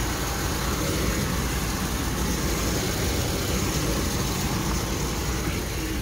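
2006 Ram 1500 engine idling steadily under the open hood, with a steady whir and rush of air from the AC condenser fan. The owner believes the fan's small electric motor is going bad, since it still works but has been making a noise for days.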